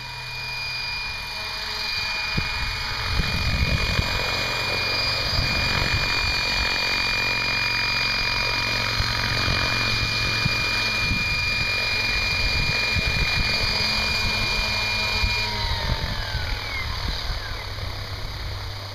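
Electric RC helicopter, a Mikado Logo 600 SE, flying in close and hovering: a steady high whine from the motor and drivetrain over the rotor's whoosh, growing louder as it comes near. About fifteen seconds in the whine glides downward as the helicopter sets down on the path and the rotor spools down.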